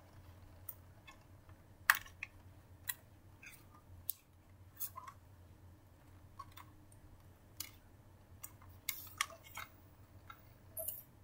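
Irregular plastic clicks and taps from a disc being handled on the spindle of an open portable DVD player, the loudest about two seconds in, over a faint steady low hum.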